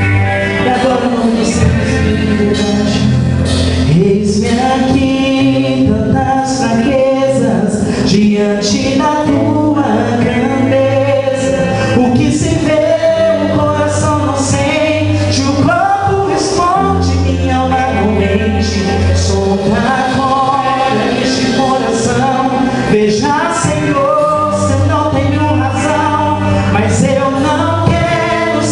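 Gospel song performed by a band with male and female voices singing together over sustained bass and cymbals.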